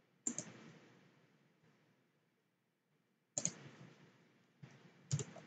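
Three faint, separate clicks of a computer mouse, a few seconds apart.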